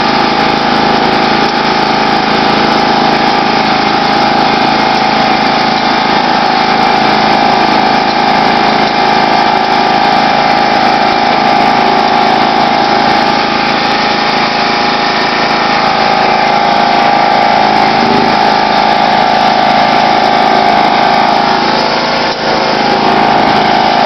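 John Deere LX176 lawn tractor's 14 OHV engine running steadily while the tractor plows slush, with a steady whine over the engine note. The level dips briefly about three-quarters of the way in.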